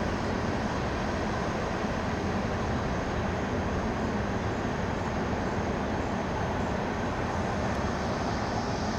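Norfolk Southern freight train rolling past, a steady, even rumble of wheels on rail.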